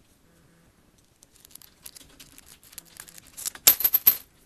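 Pick and tension wrench working the pins of a cheap five-pin padlock: small metallic clicks and scratches begin about a second in and thicken, ending in a loud cluster of sharp metal clicks as the lock opens.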